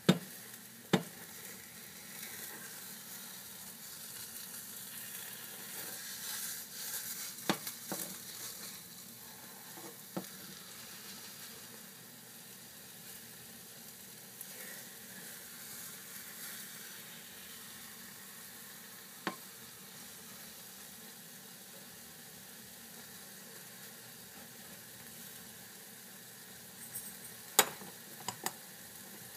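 Scrambled eggs sizzling in a frying pan while a spatula stirs and scrapes them, with a few sharp knocks of the spatula on the pan. A quick cluster of clicks comes near the end.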